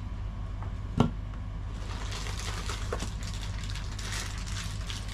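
Unboxing handling: a single sharp knock about a second in as an item is set down, then faint rustling of a plastic parts bag being handled, over a steady low hum.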